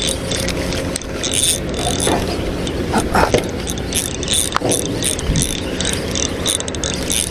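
Fishing reel being cranked in a fast lure retrieve, its gears ticking about three times a second over a steady low hum.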